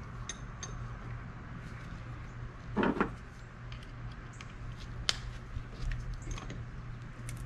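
Light metallic clicks and taps of a wrench being fitted and worked on the top nut of a car's rear shock absorber held in gloved hands. There is a brief louder noise about three seconds in and a sharp click about five seconds in, over a low steady hum.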